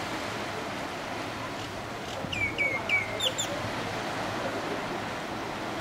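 A bird calls about two seconds in: three quick notes that each drop in pitch, then two higher notes, over the steady wash of surf on a beach.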